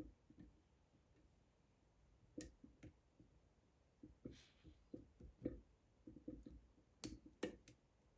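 Faint, scattered clicks and ticks of a lock pick and tension wrench working the pin stack inside a Chain Key lock's keyway, with a few sharper clicks, the loudest two close together about seven seconds in.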